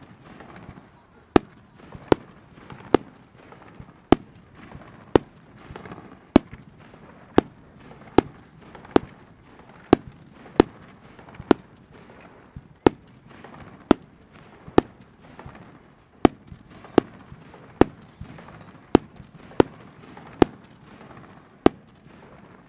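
Fireworks display: sharp shell bursts going off about once a second in a steady run, with a fainter continuous noise between them.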